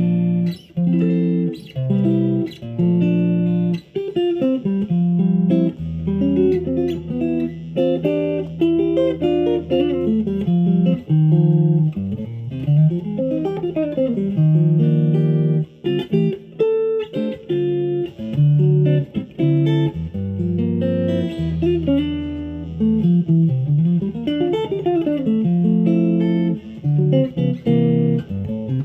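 Fender guitar playing a practice piece, mixing plucked chords and single-note runs with some sliding notes, over held deep bass notes.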